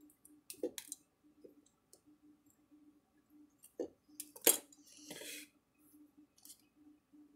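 Metal hand tools clicking and clinking on a workbench as pliers work the wires and spade connectors on the fencer's capacitors. A few sharp clicks come near the start, with the loudest clink about halfway through as the pliers are set down, followed by a short scrape. A faint low hum comes and goes throughout.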